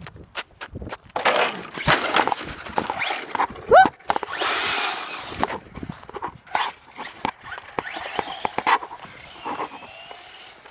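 Electric RC car running hard over pavement, its tyres skidding and its body clattering, with a short rising squeal about four seconds in followed by a loud burst of tyre hiss. The car is barely controllable on an overpowered battery.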